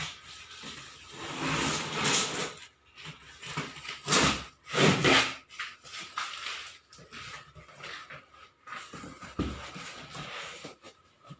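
Cardboard carton of a mixer grinder being opened and its packaging handled: rustling, tearing and scraping in irregular bursts, loudest about four to five seconds in.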